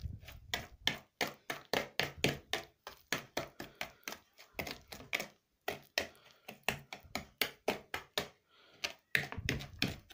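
A spoon stirring egg yolks, sugar and cocoa powder in a bowl, tapping and scraping against the bowl's sides about three to four times a second, with two short pauses.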